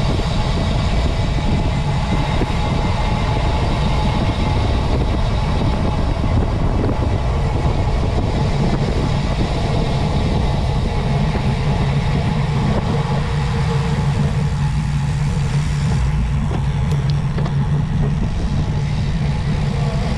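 Motorcycle engine running steadily under way, its low hum under a constant rush of wind noise.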